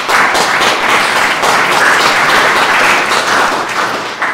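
Audience applauding, a dense, loud clapping that fades near the end.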